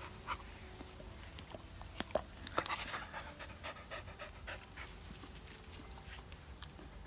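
An elderly Australian cattle dog panting with its mouth open. A few brief clicks and rustles come about two to three seconds in.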